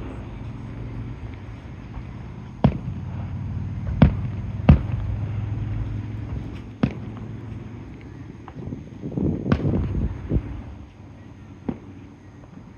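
Aerial fireworks bursting: five sharp booms over a low rolling rumble, and a flurry of crackling about nine to ten seconds in. The booms and crackling thin out toward the end.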